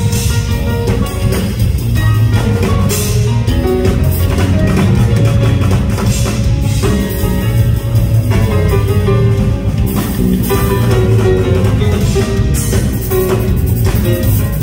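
Live band music: grand piano playing with a drum kit keeping the beat.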